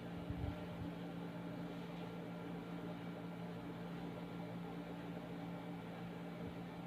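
Steady electrical hum with an even hiss from a machine running in a small room, with a couple of soft low thumps in the first second.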